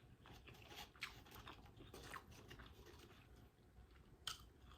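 Faint close-up chewing of a mouthful of smoked sausage and potato chips, with soft crunches and a sharper crunch about four seconds in.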